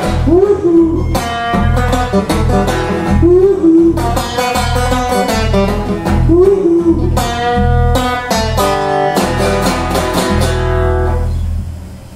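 Two acoustic guitars playing a repeating blues riff, with a note that swoops up and holds three times; near the end the playing stops and the last chord rings out.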